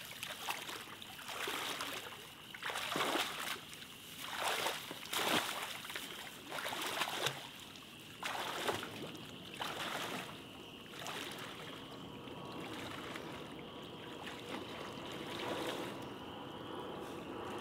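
Legs wading through flood water: a splashing swish with each stride, roughly one every second or so, thinning out to a quieter steady wash of water in the last few seconds.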